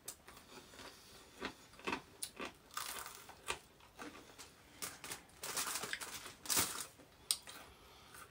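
Eating sounds: crunchy bites and chewing of garlic bread and fried food, with irregular rustling and crinkling as food is picked from a foil tray.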